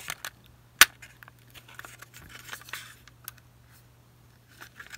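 Light plastic clicks and rattles from handling a TYCO HO-scale locomotive's plastic chassis and truck, with one sharp, loud snap a little under a second in as the rear truck is unclipped from the frame.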